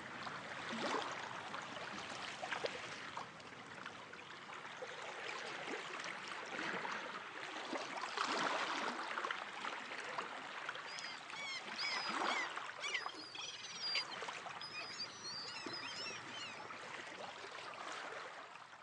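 Water lapping and splashing, like small waves against a boat, with short high bird calls scattered through it from about eleven to sixteen seconds in.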